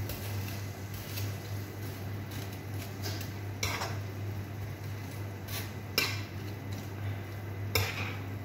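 A cooking utensil scraping and clicking against a nonstick wok while onion and spinach are stirred, with a few sharper knocks, the loudest about six seconds in and again near the end. A steady low hum runs underneath.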